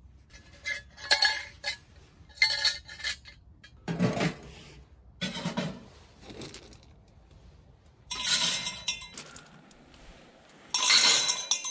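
Stainless steel pellet-burner parts, a perforated grate disc and small metal cups, clinking and clattering against each other as they are handled and fitted together, in about six separate bursts, with a couple of duller metal knocks midway.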